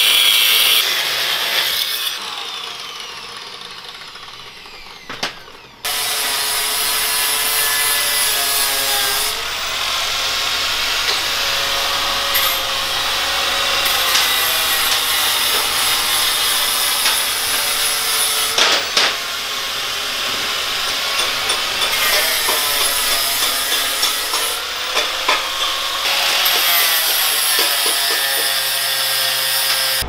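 Angle grinder with a cut-off disc cutting through a mini bike's steel frame tubing. It winds down over the first few seconds, starts again suddenly at about six seconds and runs on, its whine sagging and recovering as the disc bites into the metal.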